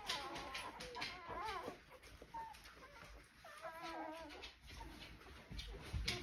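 Newborn golden retriever puppies squeaking and crying in short, high, wavering calls, with two longer cries, one at the start and one about three and a half seconds in.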